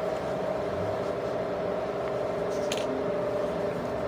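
Steady machine hum with an unchanging pitch, and one short faint click a little past halfway through.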